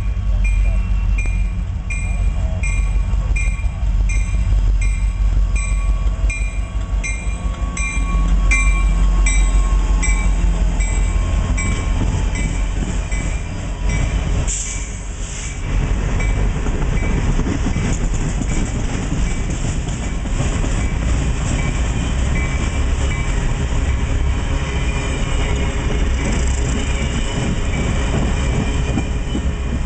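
Freight train passing: an EMD SD60 diesel locomotive runs by with a bell ringing about twice a second, the bell ending as the locomotive goes past. A long string of loaded rock hopper cars then rolls by with steady wheel clatter on the rails.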